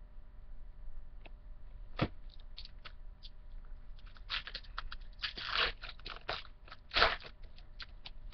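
Baseball card packs and cards being handled: a pack wrapper crinkling and cards clicking against each other in scattered short bursts, with a longer crinkle about five and a half seconds in and a sharp one about seven seconds in.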